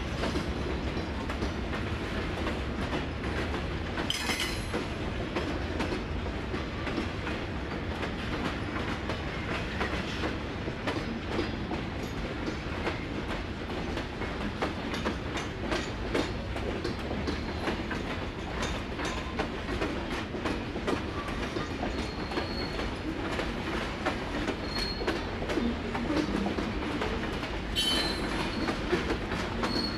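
Freight cars of a long freight train rolling slowly over a grade crossing: a steady rumble with the clickety-clack of wheels over rail joints, and brief high wheel squeals about four seconds in and again near the end.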